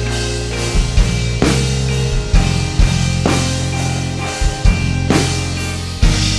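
Instrumental band music: a drum kit hitting over held bass and chords, with no singing.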